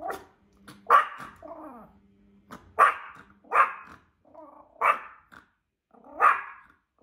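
Small Yorkshire terrier barking at a strange dog it takes for an intruder: about six sharp barks, irregularly a second or so apart, with brief growls between some of them.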